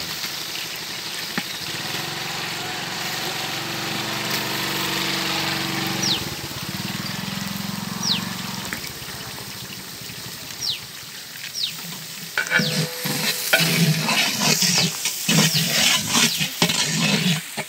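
Sliced onions sizzling as they fry in hot ghee and oil in a large aluminium pot. From about two-thirds of the way in, a long metal ladle scrapes and knocks against the pot as the onions are stirred.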